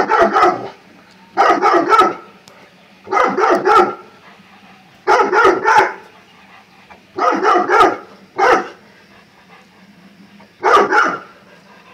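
Bullmastiff barking in repeated bouts, about seven of them, each a quick run of barks lasting under a second, with short pauses between.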